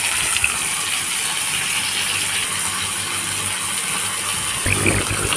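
Pompano frying in oil in a stainless steel pan, sizzling steadily with a few small pops. A low hum comes in near the end.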